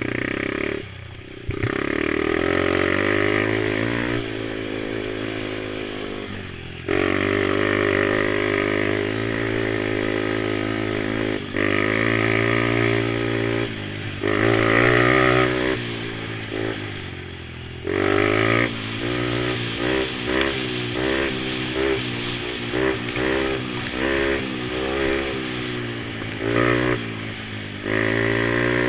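Small mini quad engine revving up and down over and over as it is ridden, its pitch rising on the throttle and dropping off again. In the second half the throttle comes on and off in quicker, shorter bursts.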